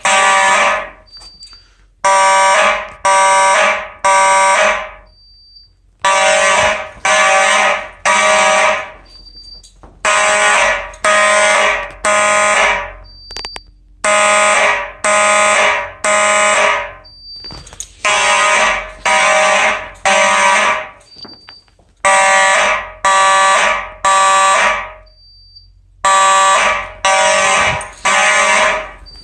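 Simplex fire alarm horns sounding in the temporal-three evacuation pattern: three buzzy blasts, then a pause, repeating about every four seconds. A short faint high blip falls in each pause.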